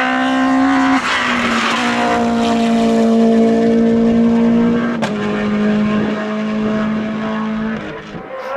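Naturally aspirated Group F2000 rally car engine pulling hard at high revs, with quick gear changes about a second in and again near the middle, the second with a sharp crack, before the revs fall away near the end.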